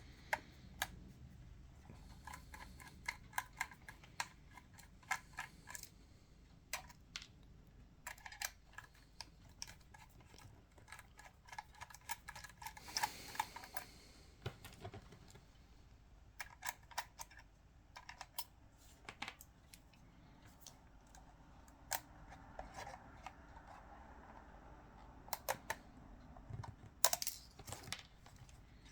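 Scattered sharp clicks and ticks of a small screwdriver turning out tiny screws from a Canon EOS 5D DSLR body, along with small metal and plastic parts being handled, with a brief scrape near the middle.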